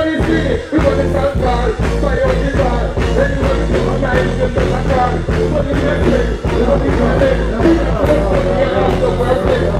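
Live reggae-dancehall stage performance: a loud band or sound-system riddim with heavy bass and a steady drum beat, and a performer's voice on the microphone over it.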